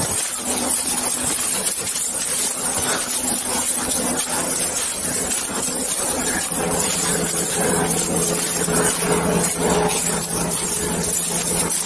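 Steady loud rustle and scuffing from a body-worn camera as its wearer walks through dry leaf litter, a hand and leash rubbing against the microphone. A faint steady hum joins about six seconds in.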